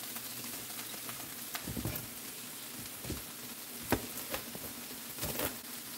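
Chef's knife chopping crisp cooked bacon on a plastic cutting board: a few irregular sharp knocks of the blade on the board, the loudest about four seconds in, over a steady sizzle of food frying in a pan.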